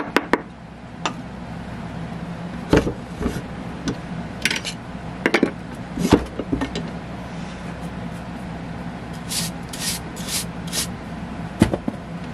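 Scattered knocks and clicks of metal tools and parts being handled at a drill press, with a quick run of about five short scraping rasps near the end, over a steady low hum.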